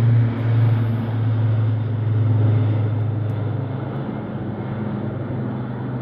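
Formation of military aircraft flying overhead, a steady low engine drone that fades slowly as they move away.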